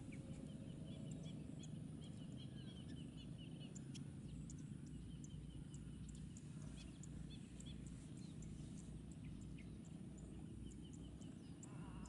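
Faint calls from a flock of small shorebirds: several quick runs of short, high chirping notes, over a steady low rumble.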